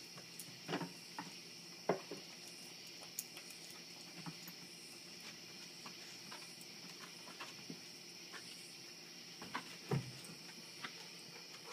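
Steady chirring of night insects such as crickets, with scattered clicks and a few louder thumps from dogs' claws and paws moving on wooden porch boards.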